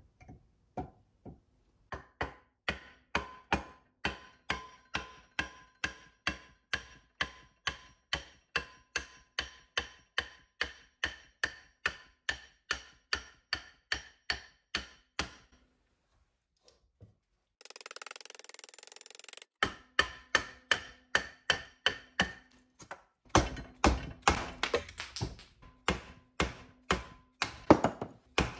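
Hammer blows driving a block of wood down onto an axe blade clamped in a bench vise to split it, a long even run of ringing knocks about two to three a second. After a pause and a brief steady hiss, a second run of heavier, faster blows follows near the end, struck with a dead blow hammer.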